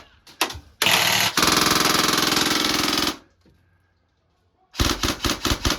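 G&G ARP9 airsoft electric gun firing: a short burst about a second in, then a full-auto burst of nearly two seconds at a fast, even rate of fire, and near the end a quick string of about half a dozen separate shots.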